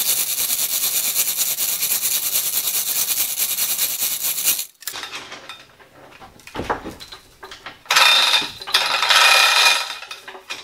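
Hand chain of a manual chain hoist rattling through the hoist as it is pulled, a steady run of fast metallic clicks that stops about four and a half seconds in. A dull thud follows a couple of seconds later, then another stretch of metallic rattling near the end.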